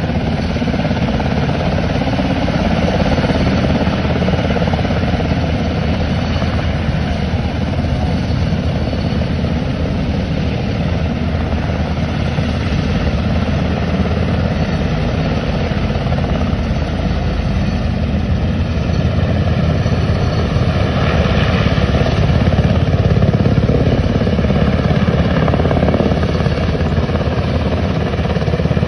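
Black Hawk helicopter's rotor and turbine engines running steadily as it hovers and lifts a slung aircraft, with a rapid, even rotor beat. It gets a little louder in the last third.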